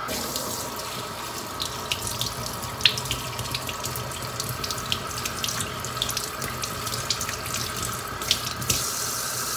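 Kitchen tap running steadily into a stainless-steel sink, with spinach leaves being rinsed under the stream so the water splashes and patters off them in many small ticks.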